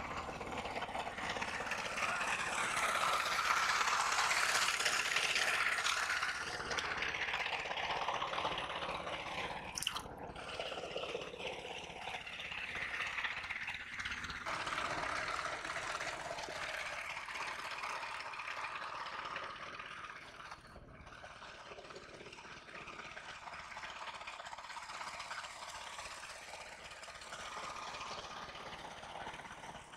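Shallow muddy water splashing and sloshing as hands work through it for a fish, loudest in the first few seconds, breaking off abruptly twice.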